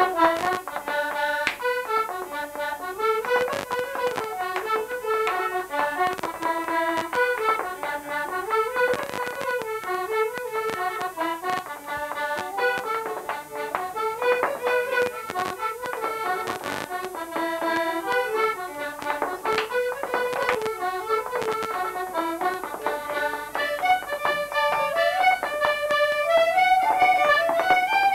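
Accordion playing a fast traditional Irish dance tune, a quick run of short notes, with a few sharp knocks here and there.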